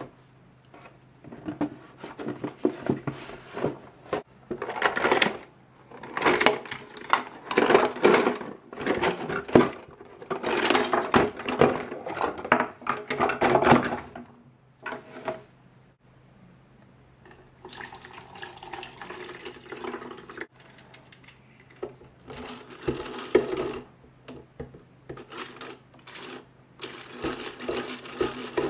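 Light plastic toy pots, pans and utensils clattering and rattling as they are handled. Later comes a plastic hand-crank egg beater whirring in several bouts, its beaters churning water in a toy saucepan.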